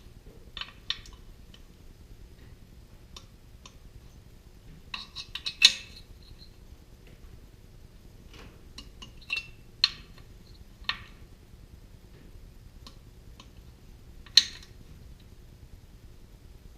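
Torque wrench working the cylinder head bolts of a Kohler K-series engine: sharp metallic clicks and clinks, scattered, with a few loud single clicks several seconds apart as bolts reach the 25 foot-pound setting.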